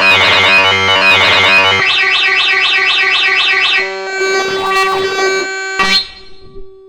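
Chaotic synthesized MIDI music from a 'noise challenge' file: dense clusters of many notes at once. About two seconds in comes a high warbling tone that wavers about five times a second. The texture then thins to a few held notes and drops much quieter near the end.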